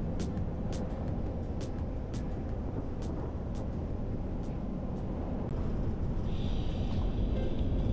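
Vehicle driving: a steady low rumble of road and engine noise with scattered sharp ticks. It grows a little louder, with a higher hiss, in the last couple of seconds.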